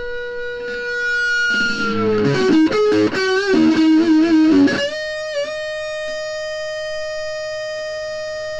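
Electric guitar played through the Skullytone FX Type R Sustain compressor pedal: a held note bends down, a quick run of notes follows, then a higher note rings on with long, even sustain, a slight wobble just after it starts.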